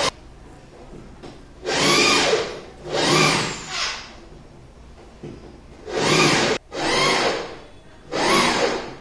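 A power tool run in short bursts, about six times, each burst spinning up and winding down within a second.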